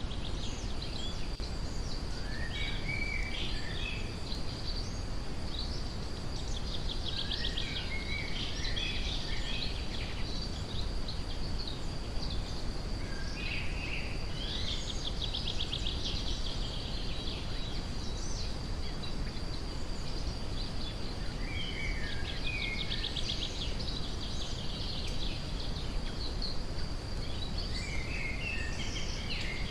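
Steady brown noise rushing under forest songbirds singing in intermittent phrases, several of them quick trills, against a thin steady high-pitched drone.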